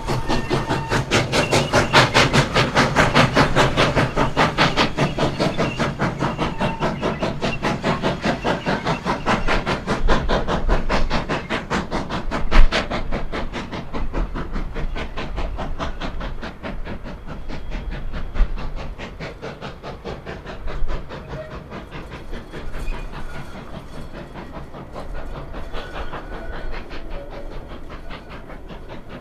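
Rio Grande K-36 narrow-gauge steam locomotive working hard, its exhaust beating in quick, even chuffs, about three a second, with a steam hiss. The chuffs fade after about eleven seconds, leaving the passenger cars rolling by with occasional sharp wheel clicks over the rail joints.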